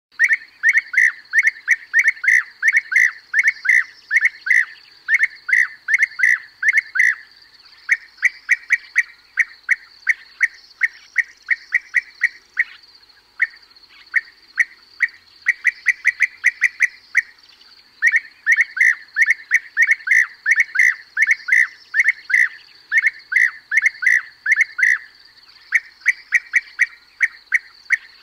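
European bee-eaters calling: short, clipped calls repeated about four a second in runs of several seconds, broken by brief pauses. It is a recorded call track of the kind played as a hunting lure.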